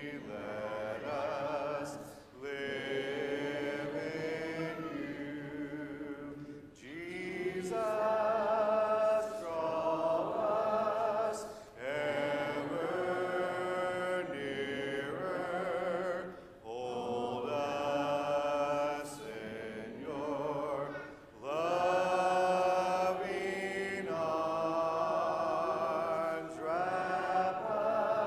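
Church congregation singing a hymn unaccompanied, in slow held phrases with short pauses for breath between the lines.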